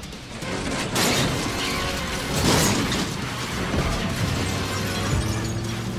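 Action-film score music with two loud crashes, about one second and two and a half seconds in, as a Chevrolet Impala rolls over and comes to rest on its roof.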